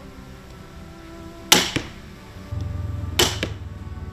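Two crossbow shots from an Excalibur Micro 360 TD, the first about a second and a half in and the second near the three-second mark. Each is a sharp crack followed a quarter second later by a fainter knock.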